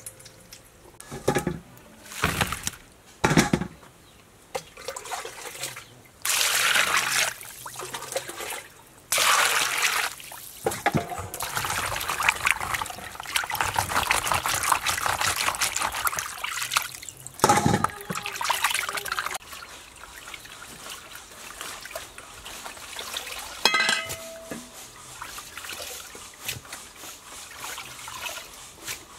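Water splashing and trickling as small fish are washed and rubbed by hand in a plastic basin, water dripping off them as they are lifted out. A few sharp knocks come through, near the start and again about two-thirds of the way in.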